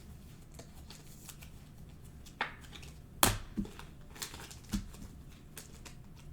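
Trading cards being handled and flicked through by hand: faint scattered rustles and light clicks, with a sharper tap a little past three seconds in.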